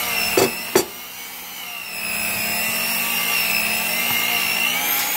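Electric hand mixer running, its beaters working stiff cookie dough in a plastic bowl, with a steady motor whine. Two sharp knocks come under a second in, then the sound dips for about a second before picking back up.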